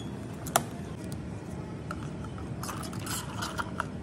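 A clear plastic lid snapped onto a plastic cup of iced drink with one sharp click about half a second in, then a few seconds later a run of small clicks and crackling as a plastic straw is pushed through the lid.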